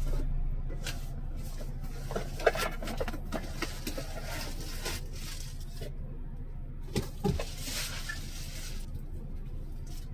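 Black & Decker 12 V handheld car vacuum running steadily, with frequent clicks and rustling as its nozzle works over the cab surfaces.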